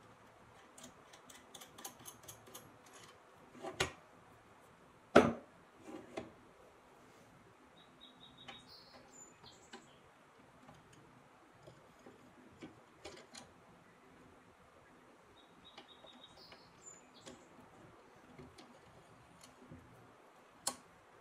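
Metal clicks, taps and knocks as parts of a restored 1937 Delta drill press head and quill are handled and fitted by hand. There is a quick run of small ticks early, the loudest knock about five seconds in, then sparse light taps. Two faint, brief high chirps come about eight and sixteen seconds in.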